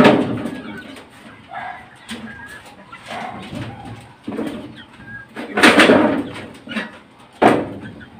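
Chickens clucking with low cooing calls, broken by a few sudden loud knocks and rattles, the loudest about six seconds in.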